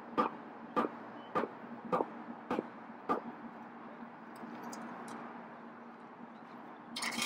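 Steel-plated hand tamper pounding damp packing clay around a rubber home plate: six dull thuds about every 0.6 s, stopping about three seconds in. A short scraping rush near the end.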